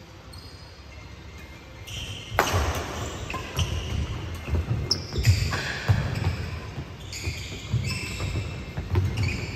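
Badminton doubles rally on a wooden court. Sharp racket strikes on the shuttlecock begin about two and a half seconds in, among many short shoe squeaks and thudding footsteps on the wooden floor.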